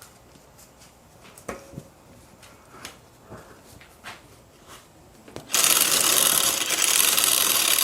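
Light clicks and taps of parts being handled, then about five and a half seconds in a loud, steady hiss of compressed air starts suddenly, blowing water off the freshly washed bike.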